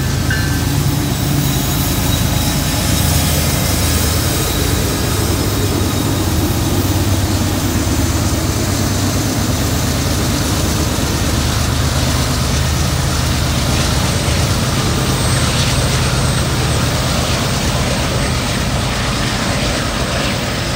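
Diesel freight locomotives passing close by at low speed, their engines running hard under heavy load on a steep grade: a steady deep rumble. Freight cars follow near the end.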